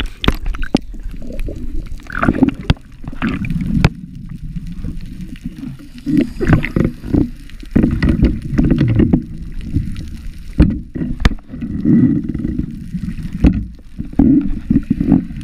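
Water heard through an underwater camera: muffled sloshing and gurgling that comes in surges every few seconds, with a few sharp knocks.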